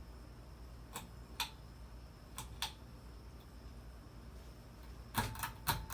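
Crest 52-inch ceiling fan running on low speed, with a steady low motor hum. Light clicks come in pairs about a second in and again around two and a half seconds in, and a quick flurry of clicks near the end.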